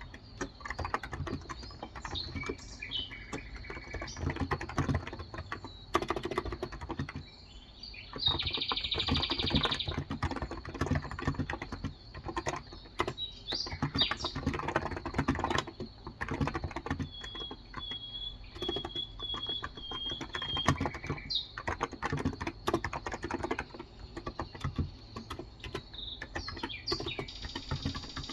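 Steady typing on a Cox Endeavor electrostatic capacitive (non-contact) tenkeyless keyboard with 35 g keys, a continuous run of keystrokes. Birds chirp in the background, with a trill about eight seconds in and a run of short repeated notes a little past the middle.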